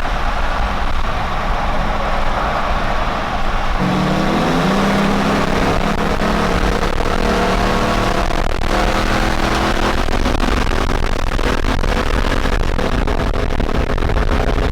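Pickup truck's V8 engine driven hard at high revs, with a low rumble throughout. About four seconds in, a steady engine note jumps up and holds there; the strain is heating up the transmission.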